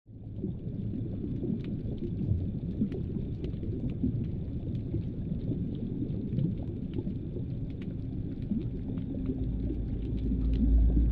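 Underwater reef ambience: a steady low rumble of water with scattered faint clicks and crackles. Toward the end a steady low hum comes in and the deep rumble grows louder.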